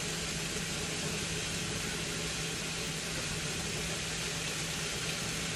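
Steady low hum with an even hiss, unchanging throughout: kitchen background noise while a gas burner heats a pan of meat.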